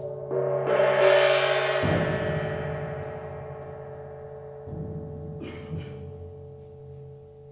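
Solo percussion: a ringing sound with many overtones swells to a crest about a second in, then fades slowly over the low resonance of the timpani. Softer drum strokes come back about five seconds in.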